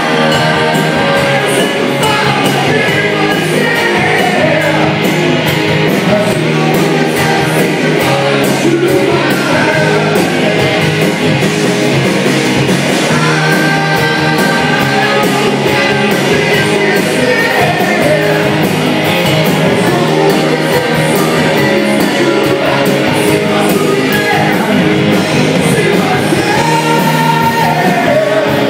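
Rock band playing live: electric guitars, bass and drums with a steady beat, and a lead singer's voice over them.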